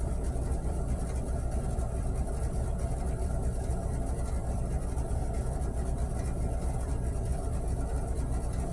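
A steady low mechanical hum and rumble, even throughout, with no music or voice over it.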